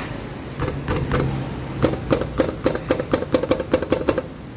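Nissan Livina's brake pads rattling loose in the brake caliper: a quick clatter of knocks, a few in the first second, then a faster run of about five or six a second until near the end, over a steady low hum. The rattle comes from play in the brake caliper that lets the pads shake.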